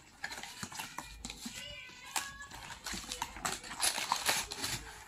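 Cardboard pedal box being opened and handled by hand: a run of small taps, clicks and scrapes as the flap is lifted and the inner tray is slid out.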